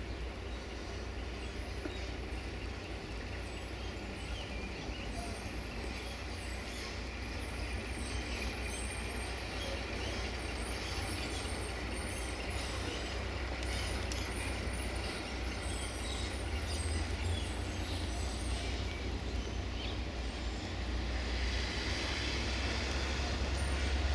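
A dump truck's diesel engine running at a distance as the loaded truck drives along. It is a steady low rumble that grows a little louder near the end, with faint high chirping above it.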